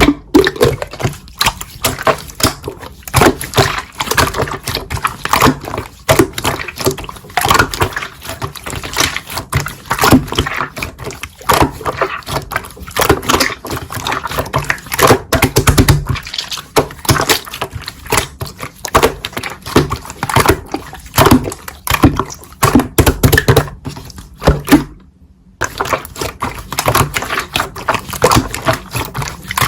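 Slime being squeezed, poked and stretched by hand, making rapid sticky clicks and squelches, with a brief pause about 25 seconds in.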